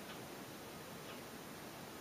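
Quiet room tone: a steady low hiss with a few faint, soft ticks.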